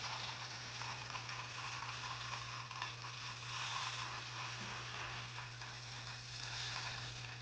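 Wooden bead spinner turning, with seed beads in the spinning bowl making a steady rustling hiss and small clicks as they are scooped up onto the needle; it stops abruptly near the end. A low steady hum sits underneath.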